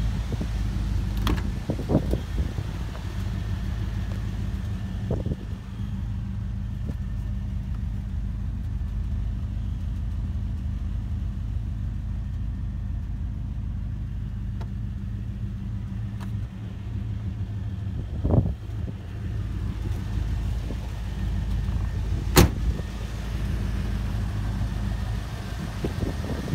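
1983 Chevrolet Caprice Classic's V8 idling steadily. A few sharp knocks come through, the loudest about three-quarters of the way in.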